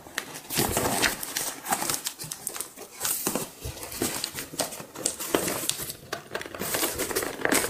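Cardboard box flap and packing tape being pried and torn open by hand: a run of irregular rustles, scrapes and tearing crackles of paperboard.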